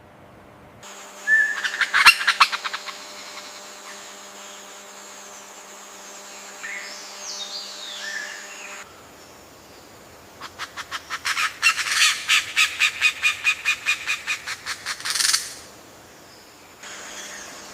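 Bird calls: a short burst of chattering notes with a whistled note about two seconds in, a few soft chirps later, then a long run of rapid, evenly spaced chattering notes, about five a second, lasting some five seconds.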